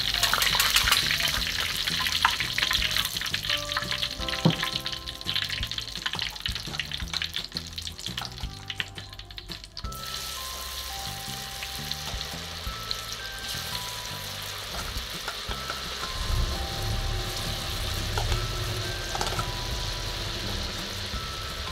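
Battered horn plantain pieces deep-frying in hot oil in a wok: a crackling sizzle, loudest for the first ten seconds or so and softer after, with a few sharp clicks in the first few seconds.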